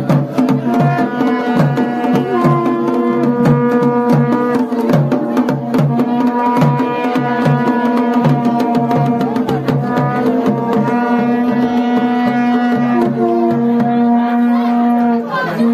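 Festival folk music: a drum keeps a steady beat of about three strokes a second under a sustained melody played over a held drone note. The drumbeat drops out near the end while the melody goes on.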